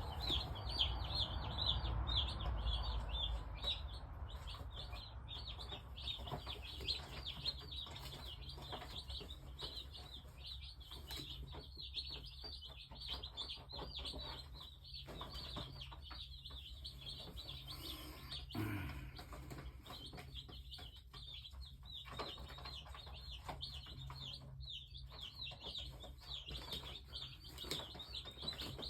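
A brood of Cornish Cross broiler chicks peeping continuously, many high short chirps overlapping, over a steady low hum.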